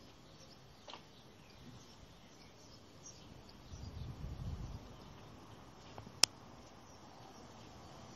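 Quiet outdoor ambience with faint, scattered bird chirps. A low rumble comes about four seconds in, and a single sharp click about six seconds in.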